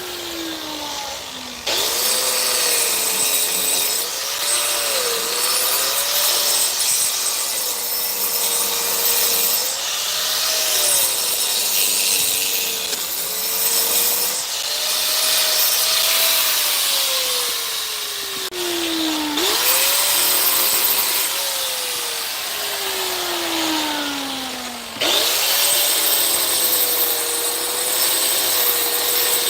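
Electric power saw cutting wood in repeated long runs. The motor's pitch sags and recovers under load, and between runs it winds down in a falling whine before starting up again.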